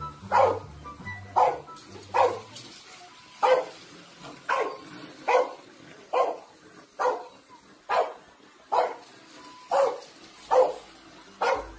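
Small dog barking over and over, short sharp barks at about one a second.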